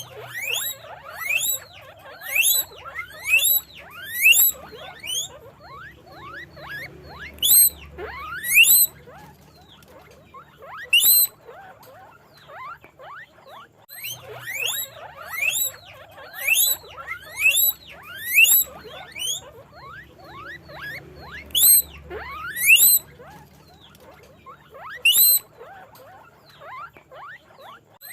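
Guinea pigs squeaking: a run of short, sharply rising high-pitched calls, often several a second, in bunches with short lulls between and quieter chatter underneath.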